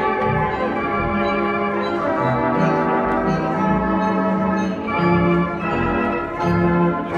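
Restored Robert Morton theater pipe organ playing held chords over a moving bass line, the harmony changing about every second.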